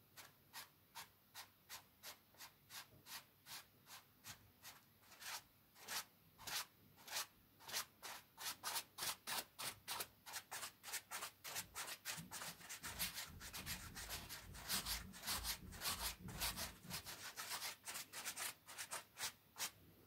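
Paintbrush rubbing short strokes across a canvas, a scratchy swish about two to three times a second, quickening to about four a second partway through. A low rumble sits under the strokes in the middle.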